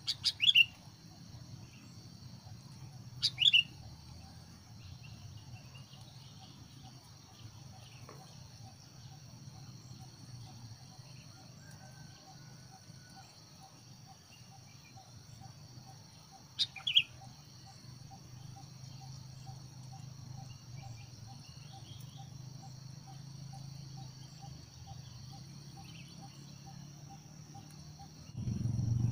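Sooty-headed bulbuls giving short, sharp calls: twice in the first few seconds and once again about halfway through. Under them runs a steady, high-pitched drone of insects.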